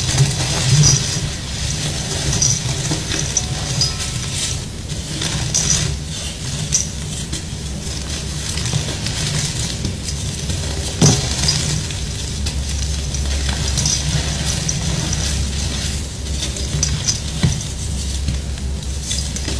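Hands squeezing and crushing sprinkle-topped blocks of gym chalk in a stainless steel bowl: continuous dense crunching and crumbling with many small crackles, and one sharper crack about eleven seconds in.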